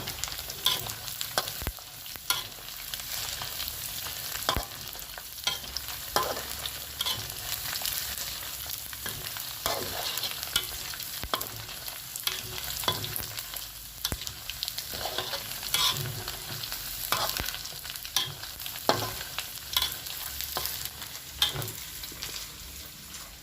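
Beef frying in hot oil in a pan: a steady sizzle with frequent small pops and crackles of spattering fat.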